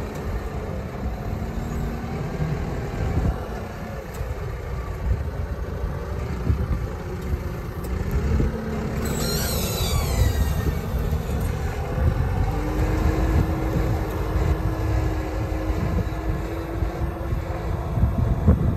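Tractor engine running under load as it pulls a tine-and-disc stubble cultivator through the soil, passing close by. About nine seconds in, a brief high whine falls in pitch.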